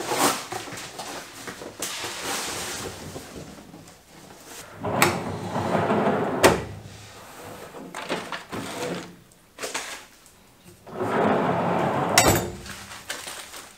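XTM steel 4WD drawer sliding along its roller runners twice, each run ending in a sharp clack against its stop, the second about twelve seconds in as it is pushed shut. Cardboard packaging being handled at first.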